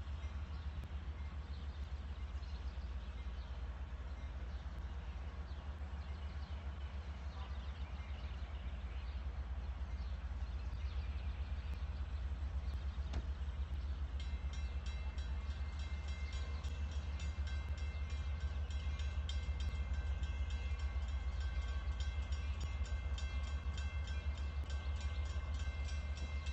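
Diesel locomotives, LIRR DM30AC units, idling in the distance: a steady low rumble. About halfway through, a high, rapidly repeating ringing starts and keeps going.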